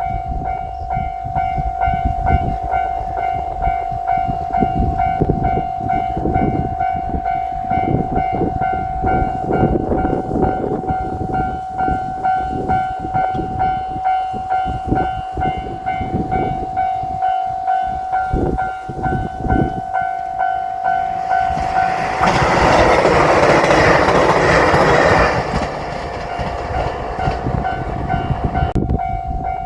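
Japanese railroad crossing warning bell ringing steadily as a diesel limited express train passes with a heavy rumble and clatter of wheels on the rails. About three quarters of the way through, a loud noisy blast lasting about three seconds briefly covers the bell.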